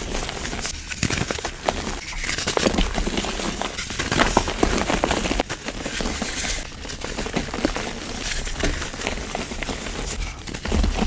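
Dense crackling and crunching of a crumbly material being crushed, with many small sharp clicks.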